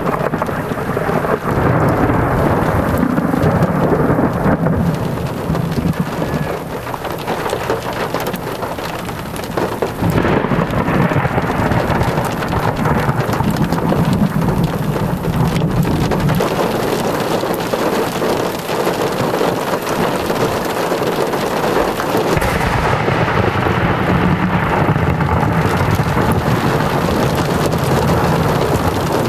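Steady rain falling through a thunderstorm, with thunder rumbling in it several times, low and rolling.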